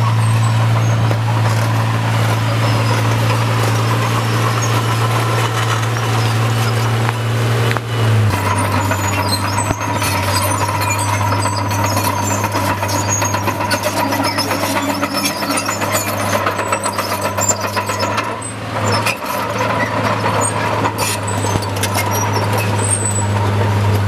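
Crawler bulldozer's diesel engine running steadily under load. Its note drops about a third of the way in, and from there the clatter and clank of its steel tracks grows.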